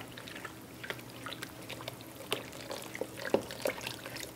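Wooden spoon stirring flour in a stainless steel mixing bowl, with soft scattered clicks and taps of spoon and saucepan against the bowl as melted butter is poured in.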